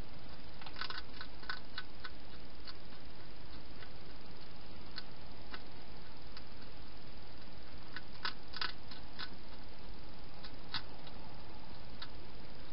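Hedgehog eating from a bowl: clusters of short, sharp chewing clicks about a second in and again around eight to nine seconds, over a steady hiss.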